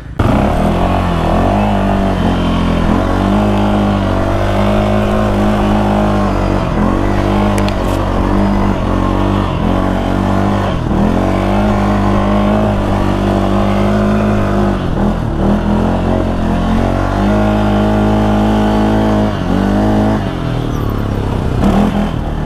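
Motorcycle engine running hard, its revs held steady for a few seconds at a time, then dipping and climbing again, several times over.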